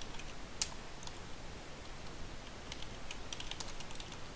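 Typing on a computer keyboard: a single sharp keystroke about half a second in, a few light ones after it, then a quick run of keystrokes near the end.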